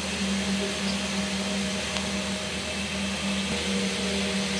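Steady hum and whir of a small electric motor running, with a constant low tone and an even hiss.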